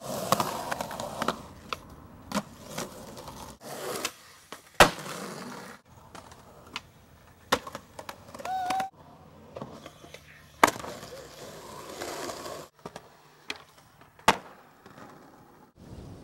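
Skateboard wheels rolling on concrete, broken by several sharp clacks of the board popping and landing. The sound cuts abruptly between several short clips.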